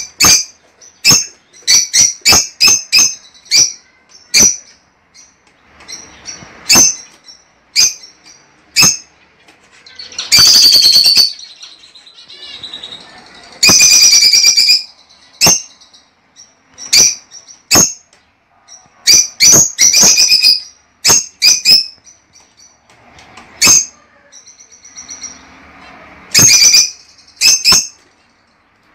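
Lovebirds calling: a run of short, sharp, high-pitched chirps at irregular intervals, broken by three longer bursts of rapid chatter about ten, fourteen and twenty-six seconds in.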